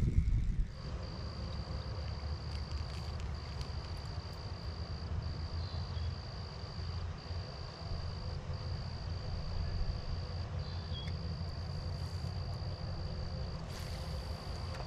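An insect trilling: one steady, high-pitched trill that breaks off briefly every second or two, over a steady low rumble.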